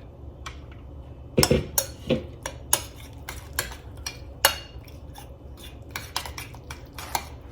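A utensil clinking and tapping against a bowl in irregular sharp clicks while the tzatziki's cucumber, oil and garlic are mixed.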